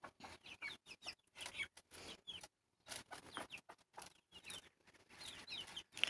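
Faint clucking and short peeping calls of a small flock of hens and young broiler chickens as they scramble after pieces of bread, the calls scattered and some falling in pitch.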